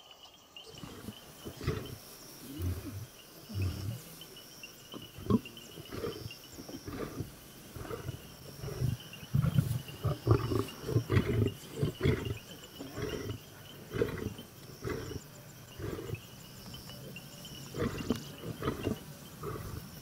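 Lions growling and snarling over a buffalo kill: an irregular run of short, low rumbles and snarls that starts about a second in and carries on, the sound of the pride competing for the carcass while the male feeds.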